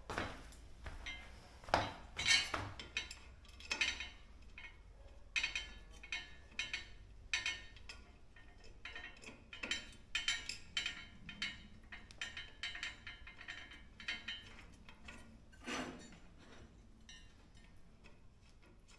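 Irregular light metallic clicks, clinks and taps as small metal fasteners and connectors are fitted by hand into the corner joint of an aluminium extrusion-profile frame.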